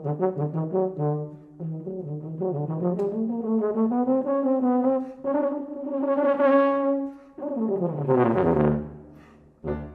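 Yamaha YFB-822 F tuba playing a ragtime line: a run of quick short notes, then a note sliding up into a long held high note, then a loud falling glissando down into the low register that fades out near the end.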